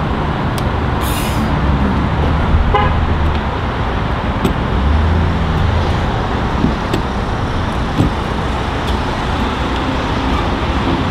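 Steady road-traffic and vehicle engine noise with a low rumble, broken by a few faint clicks.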